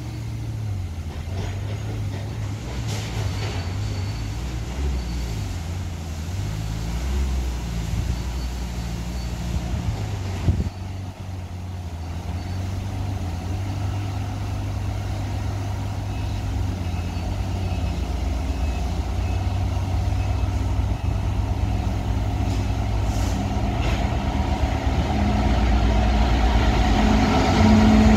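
Two coupled Class 66 diesel locomotives running light, their two-stroke V12 engines giving a steady low sound that grows louder as they approach and reach the listener. A single brief knock about ten seconds in.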